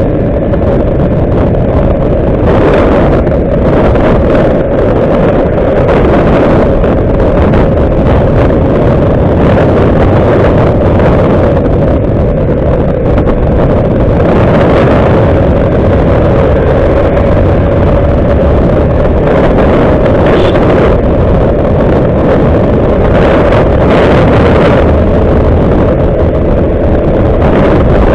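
Motorcycle ridden at road speed: wind buffeting the mounted microphone, with the engine and tyres running underneath as a loud, steady rumble.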